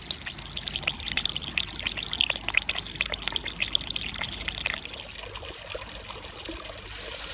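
Granite garden fountain: water running down its stone columns and splashing onto pebbles in the basin, a busy patter of small splashes that turns into a softer, steadier trickle about five seconds in.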